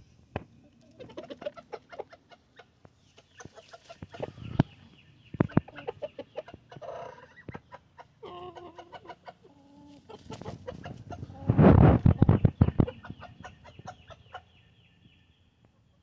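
Backyard chickens clucking and giving short calls among many quick sharp taps. About eleven seconds in comes a loud flurry of rapid sharp sounds lasting a second or two, the loudest thing heard.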